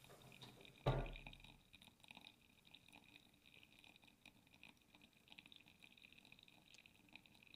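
Wet coffee grounds in a paper filter in a pour-over dripper fizzing and crackling faintly as hot water drains through them. A single thump about a second in.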